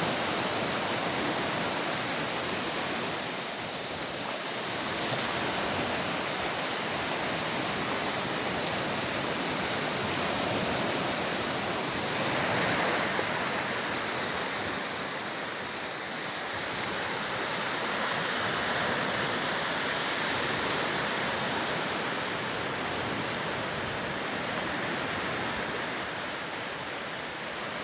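Sea waves washing onto the shore, a steady rush of surf that swells and eases slowly every several seconds.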